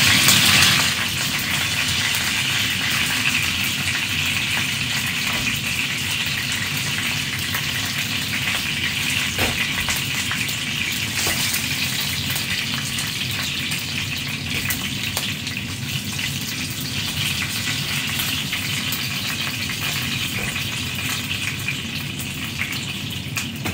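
Turkey pieces sizzling in hot oil in a frying pan: a steady hiss that eases off a little toward the end, with a few light clicks.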